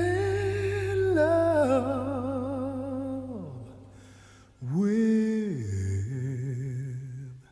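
Background song: a singer humming long wordless notes with vibrato, sliding down between them, with a short break about four seconds in, over a steady low tone.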